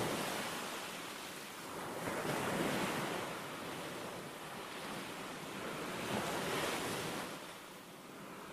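North Sea waves breaking on a sandy beach, the surf swelling and falling back about every four seconds, with wind buffeting the microphone.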